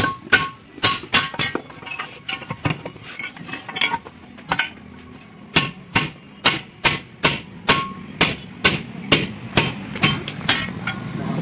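Hammer striking a steel tyre lever against a tractor-trailer wheel's steel rim: a long run of clanging metal blows, some with a short ring, irregular at first and then about two a second. The blows work the tyre off the rim for a puncture repair.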